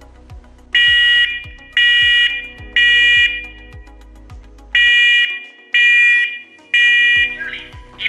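First Alert SA511 wireless smoke alarm sounding its test alarm after its test button is pressed: shrill beeps in the temporal-three pattern, two rounds of three half-second beeps with a pause between rounds.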